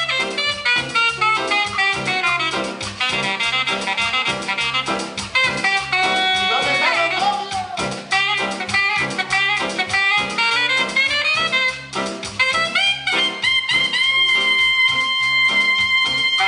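Live band playing an instrumental passage, led by a horn section of saxophones and brass over keyboard and a steady dance beat. About three-quarters of the way through, the horns hold a long sustained chord.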